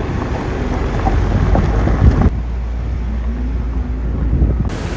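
Waterfall roar with wind rumbling on the microphone. The sound changes abruptly about two seconds in and again near the end.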